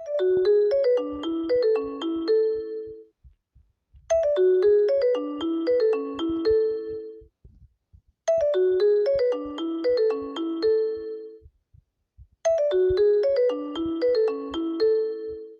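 iPhone ringtone: a short melody of distinct notes, about three seconds long, playing four times with a short pause between each.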